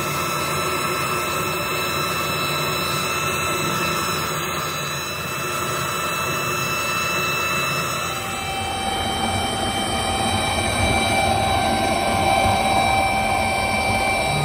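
Factory machinery running steadily: an even mechanical noise with several high, steady whining tones, and a lower steady whine comes in about eight seconds in.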